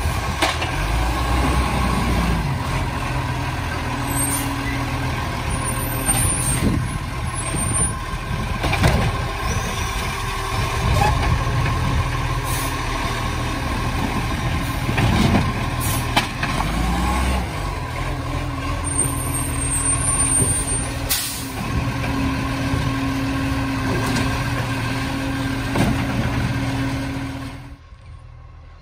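Side-loading garbage truck (Iveco Acco with a Bucher body) running with a steady hum while its hydraulic arm grabs, lifts and empties a wheelie bin. Several short, sharp hisses and knocks cut through, typical of air-brake releases and the bin being handled. The sound drops away about a second before the end.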